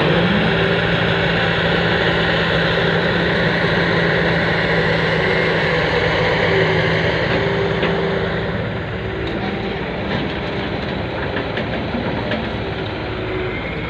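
Diesel engine of a Fiat-Hitachi 150 excavator running steadily at work, a constant hum that drops a little in level about eight or nine seconds in, with a few faint clicks later.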